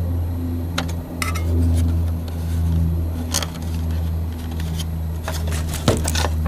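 Scattered light clicks and taps of hands handling a plastic gauge cluster and face-plates, with a few quick clicks near the end. Underneath, a steady low mechanical hum swells and fades.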